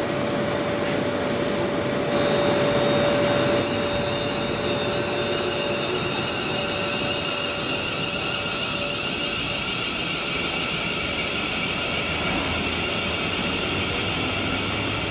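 TransPennine Express Class 350 electric multiple unit running into the platform and slowing: a steady electric whine from its traction equipment over the rush of the train.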